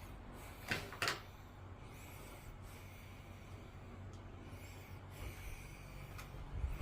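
Two sharp clicks about a second in, and a fainter one near the end, over a low steady hum: room lights being switched off.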